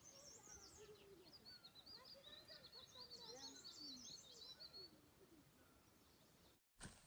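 Faint birdsong: several small birds chirping and trilling in quick high notes, with fainter lower sliding calls under them, fading out after about five seconds and cut off abruptly near the end.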